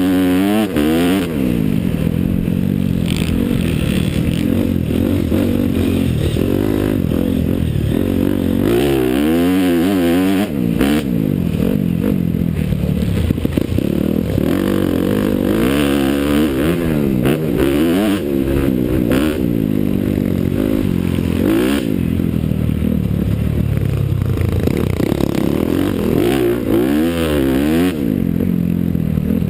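Honda CRF 250R motocross bike's four-stroke single-cylinder engine heard from on board, revving up and dropping back again and again as the rider shifts and throttles through the track, over a steady rush of wind noise.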